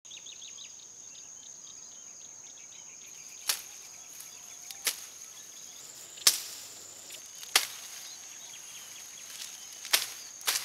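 Sharp snaps about six times, a second or more apart, the last two as a bolo knife cuts through tall grass stalks. Under them runs a steady high insect buzz, with bird chirps in the first three seconds.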